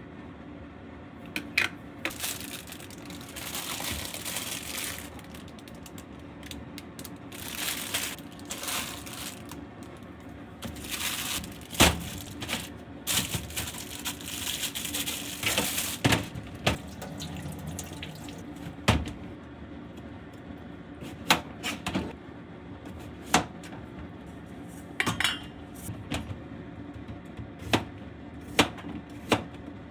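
Kitchen-sink work: a tap runs in several bursts into a stainless-steel sink, with clatters of dishes and steel bowls, then a knife cuts cucumbers on a cutting board in a run of sharp taps.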